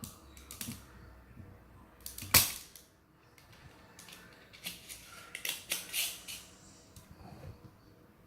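Spring-loaded desoldering pump (solder sucker) working on a keyboard switch's solder joints: one loud sharp snap of the plunger releasing a little over two seconds in, with shorter clicks and knocks before it and a cluster of them about five to six seconds in.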